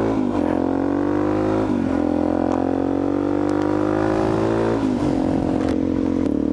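Supermoto motorcycle engine accelerating through the gears: the pitch climbs steadily, then drops with an upshift right at the start, about two seconds in, and about five seconds in.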